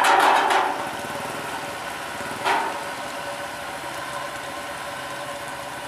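Kubota DCX 100 combine harvester's engine running steadily as the machine travels, with a loud rattling burst at the start and a shorter one about two and a half seconds in.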